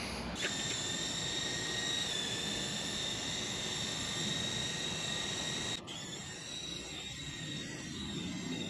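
Insecticide (Carpenter Ant and Termite Killer Plus) spraying with a steady hiss from the can into the opened wall, cutting off suddenly almost six seconds in. A quieter steady background noise follows.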